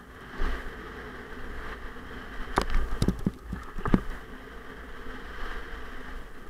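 Mountain bike riding down a dirt trail: tyres rolling on packed dirt with wind on the microphone. Several sharp knocks and rattles from the bike come between about two and a half and four seconds in, as it takes and lands the jumps.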